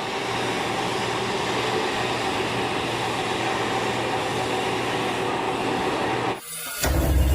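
Steady mechanical noise of a machine tool running, with a faint pulsing low hum beneath it. It cuts out about six and a half seconds in, and music with a heavy bass comes in just before the end.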